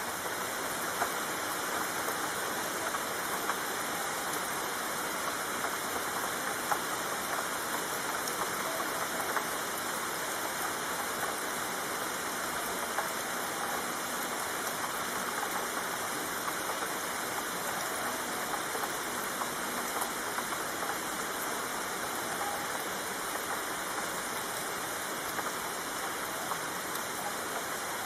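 Steady rainfall: an even, unbroken hiss of rain with scattered sharper ticks of single drops landing close by.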